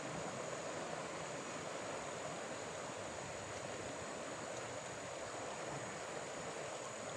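Steady, even rush of a river swollen by a big flood, its muddy water flowing past the bank.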